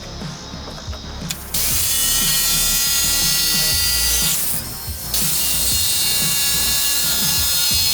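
High-speed power cutting tool running under load, a loud high-pitched whine in two runs with a short break between them. Background music plays underneath.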